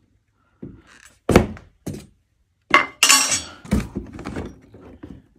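Unpacking a Starlink kit from its cardboard box: hard parts knock and thud against the box and its molded pulp insert. The loudest knocks come just over a second in and near the four-second mark, with a short rustle of packaging around three seconds in.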